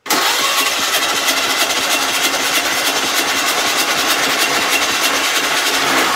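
Ford Model A engine set up to run on one cylinder, turning over and firing with a steady rapid beat for about six seconds, starting and stopping abruptly. The spark has just been advanced, and the owner judges it advanced too far, so the timing needs adjusting.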